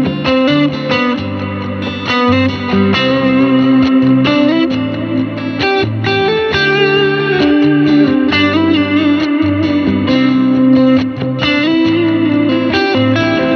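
Fender American Vintage II '61 Stratocaster electric guitar, with its single-coil pickups, played through an amplifier: a continuous run of notes and chords over a rhythmic accompaniment with low sustained notes.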